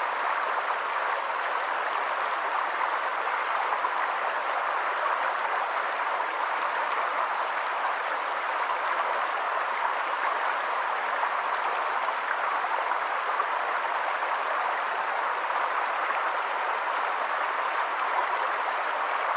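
Steady rushing of water: an even hiss with no distinct drips, calls or other events standing out.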